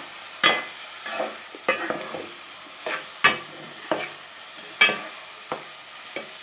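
Metal spatula stirring and scraping cut French beans around a metal pot, a sharp scrape every second or so at uneven intervals, over a low sizzle as the beans sauté in the spice masala.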